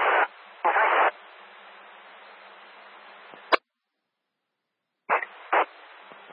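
Fire dispatch two-way radio channel keyed with no voice: two loud bursts of static, then an open channel hissing for a couple of seconds, cut off by a squelch click. After a second and a half of dead silence the channel keys up again near the end with two short static bursts and hiss.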